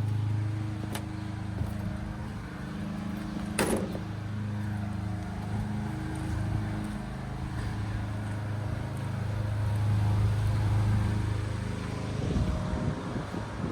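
An engine running steadily with a low, even drone, with one short sharp click about four seconds in.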